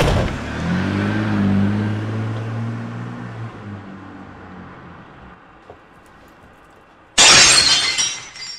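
A car engine starts off and fades as it drives away over several seconds. About seven seconds in, a sudden loud crash of breaking glass lasting about a second, the sign of a break-in.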